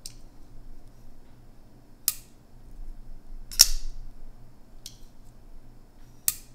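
TURENZ Yaren frame-lock folding knife being flicked open and closed: the blade snaps into lock and drops back shut in five sharp clicks, the loudest about three and a half seconds in and a faint one just before the last.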